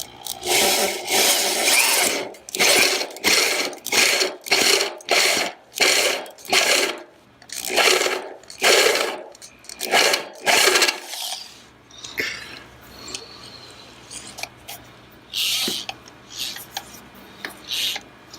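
Power drill run in about a dozen short bursts, boring a hole through the LTE antenna panel's housing, then a quieter stretch of scattered handling clicks over the last several seconds.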